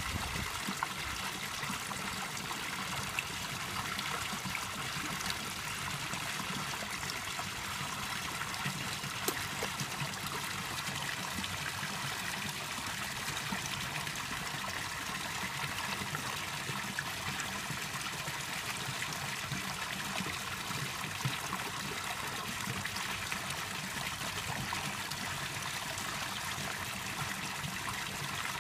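Steady trickling water of a koi pond, with one or two faint splashes from the water's surface.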